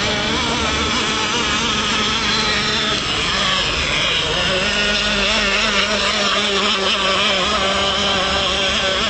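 Small nitro glow engine of an RC outboard speedboat running with a high buzzing whine, its pitch wavering throughout. About three seconds in, the pitch dips briefly and then climbs again.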